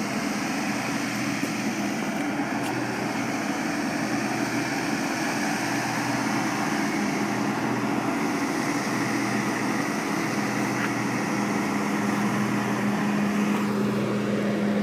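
Steady mechanical hum of aircraft or ramp machinery running, with a low drone that grows a little stronger near the end.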